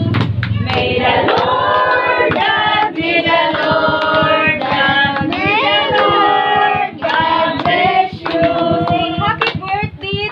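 A group of adults and children singing a birthday blessing song together, with hands clapping along.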